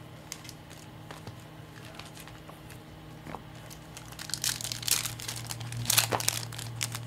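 Topps Chrome baseball card packs being torn open, their foil wrappers crinkling: a few light crinkles at first, then a dense run of tearing and crinkling from about four seconds in.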